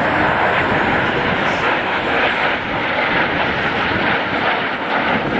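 Canadair CT-114 Tutor jet trainers flying past in formation, their single turbojet engines giving a steady rush of jet noise with a faint high whine.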